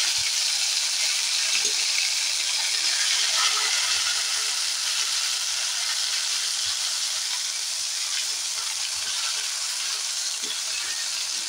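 Freshly ground sesame paste sizzling in hot oil in a steel kadai as a flat metal spatula spreads and stirs it: a steady frying hiss that eases off slightly, with faint scrapes of the spatula.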